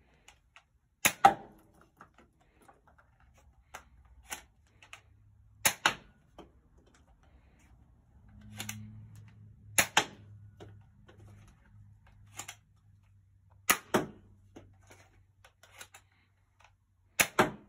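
Nerf Alpha Strike Wolf LR-1 spring blaster fired shot after shot: five loud, sharp double snaps about four seconds apart. Between them come lighter plastic clicks and rattles as each dart is loaded and the priming handle is pulled back.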